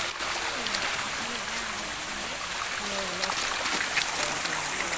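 A dense crowd of koi and carp thrashing at the water's surface, a steady churning and splashing, with people's voices in the background.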